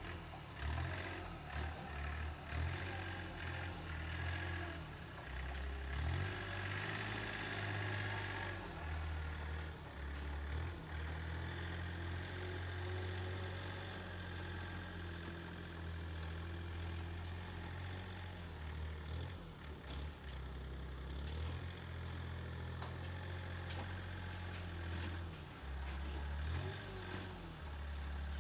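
Compact wheel loader's engine running as it clears snow, the engine note rising and falling as it moves and pushes, with a few knocks.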